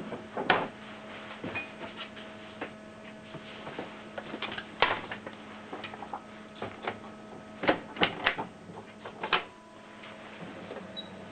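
Canon Pixma MG2470 inkjet printer's mechanism working as a print job gets under way: a steady low hum with irregular clicks and clacks, several close together near the end.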